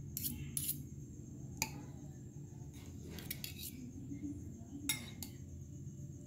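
A metal fork clinking against a ceramic bowl while tossing a grated papaya salad: several sharp, scattered clinks over a steady low hum.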